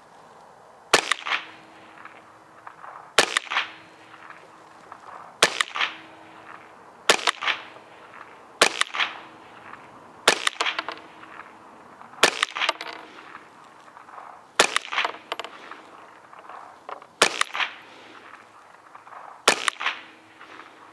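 CZ 512 semi-automatic .22 WMR rimfire rifle fired with a moderator fitted: about ten single shots, one every couple of seconds, each crack followed a split second later by a second, shorter crack.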